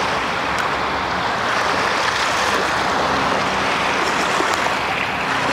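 Steady rushing wash of wind and small lake waves at the shoreline, with a faint low hum in the middle.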